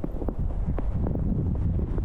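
Footsteps crunching in snow, with short crackles as the boots press in. Wind buffets the microphone with a heavy low rumble throughout.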